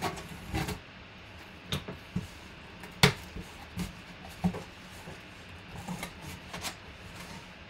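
A taped cardboard shipping box being opened by hand: cardboard scraping and rustling, with a few short sharp knocks as the flaps are pulled apart. The sharpest knock comes about three seconds in.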